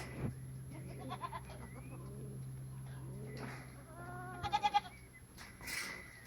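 Goats bleating: several quavering bleats, the loudest about four and a half seconds in, with lower, shorter calls between them. A steady low hum runs underneath.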